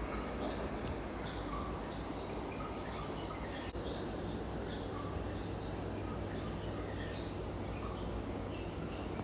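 Short high chirps repeating about once a second, with other scattered chirps lower in pitch, over a steady low hum.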